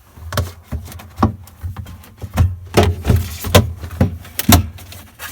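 A string of irregular knocks and clicks with low thumps: hands working at the clipped-on plastic parts of a Samsung RB215 refrigerator.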